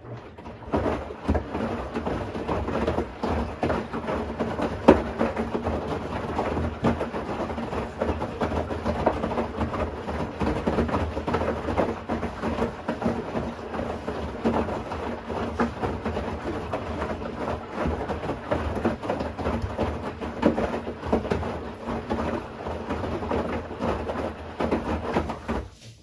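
Bosch Series 6 i-DOS front-loading washing machine drum turning during the wash: wet underwear and socks tumbling and sloshing in the water, with a low motor hum under it. It starts abruptly and cuts off near the end, as the drum stops to pause before reversing.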